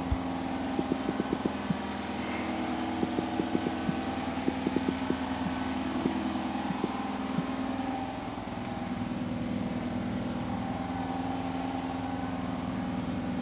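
Washing machine running with a steady hum. Over it, a quick run of small taps from fingers on a phone's touchscreen keyboard, from about one second in to about seven seconds in.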